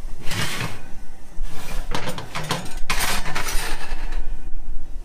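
Three short sliding, scraping noises about a second apart, over a low steady hum.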